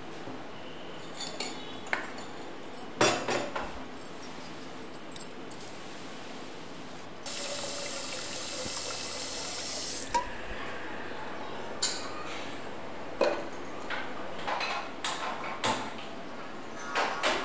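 Kitchen sounds: metal vessels clinking and being set down, then a tap running for about three seconds in the middle, then more metal clatters as an aluminium pressure cooker is handled and set on a gas stove.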